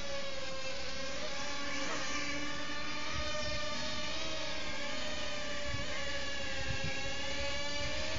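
Reely MC 120 micro quadcopter hovering and flying, its small electric motors and propellers making a steady high buzzing whine whose pitch wavers slightly up and down as the throttle changes.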